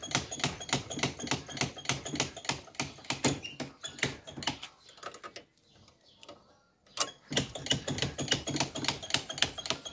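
ATV rear wheel and axle being turned by hand, giving a rapid, even clicking of about four or five clicks a second that stops for about two seconds midway and then resumes. The wheel is being spun to check the freshly bled rear hydraulic disc brake.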